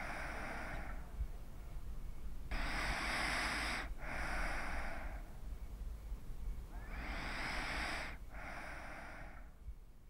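A person breathing deeply and slowly: three full breaths, each a long breath in followed almost at once by a long breath out, a few seconds apart.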